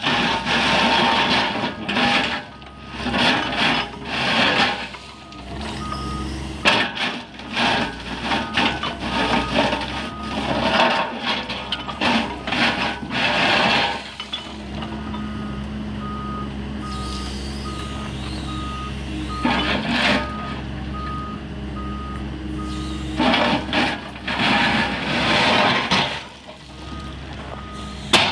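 Doosan DX140W wheeled excavator's diesel engine running under hydraulic load while its SRW14 railway attachment scrapes and pushes track ballast, in loud rough bursts of grinding stone. A steady repeating warning beep from the machine sounds through much of it.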